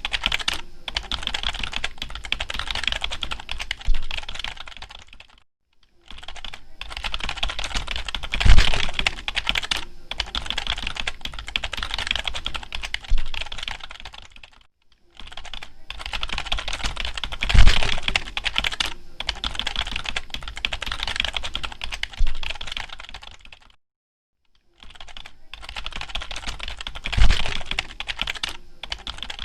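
Computer keyboard being typed on quickly, in runs of dense key clicks separated by short pauses about every nine seconds. One key in each run lands noticeably harder and deeper than the rest.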